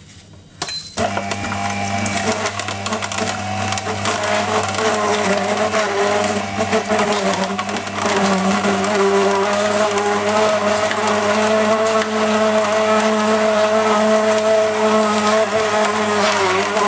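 Electric auger (screw-type) juicer starting up about a second in and running steadily, its motor humming under a continuous crackle as it crushes apple pieces.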